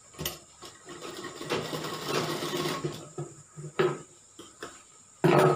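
Sewing machine stitching a seam in short runs: one run of about a second and a half, then a stop with a few sharp clicks, and it starts again loudly near the end. The short runs belong to sewing a curved seam little by little while the cloth is eased along.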